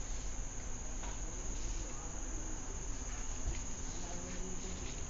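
Steady, unbroken high-pitched insect trill, like crickets, over a low rumble.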